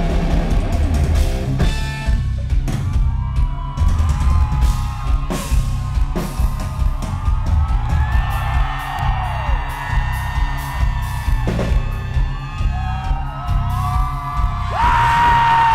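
Live rock band playing loud: a drum kit keeps a steady beat under bass and electric guitar, with crowd whoops and yells over the music.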